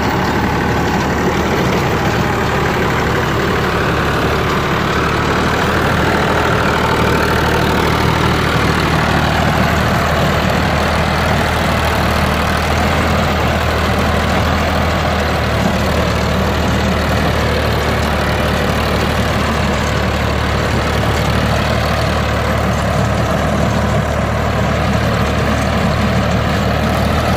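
Tractor diesel engine running steadily under heavy load, driving a rotavator through hard, long-uncultivated ground.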